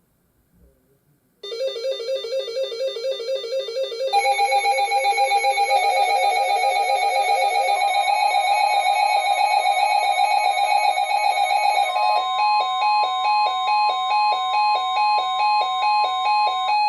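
Electronic music of synthesized, buzzy repeating notes. It starts suddenly, a second part comes in about four seconds later, and around twelve seconds in it changes to a pattern pulsing about twice a second.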